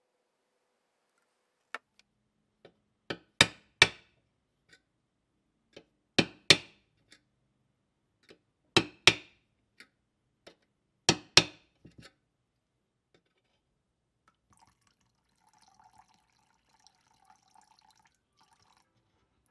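Drain holes punched around the rim channel of a metal gallon paint can: four pairs of sharp metallic strikes a few seconds apart, with lighter taps between. Faint clinks and rustling of the cans and mixing cup follow near the end.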